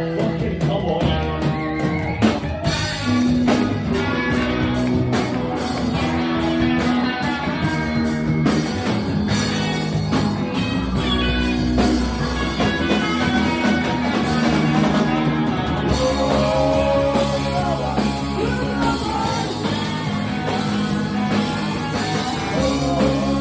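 A rock band playing live, with guitars and a drum kit and some singing.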